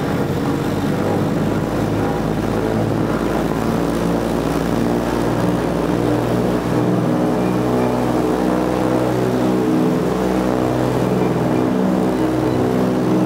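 Lockheed Super Constellation's Wright R-3350 piston radial engines running with spinning propellers, heard from inside the cabin: a loud, steady drone.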